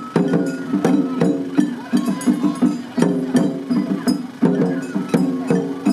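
Japanese festival hayashi played by children on a float: drums and clacking, ringing percussion beaten in a steady, quick rhythm.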